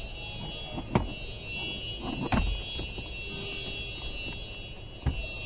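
Plastic clicks and knocks as hands pull loose ducting and connectors behind a car's dashboard: a sharp click about a second in, a louder knock just past two seconds, and another click near the end. A steady high-pitched whine runs underneath.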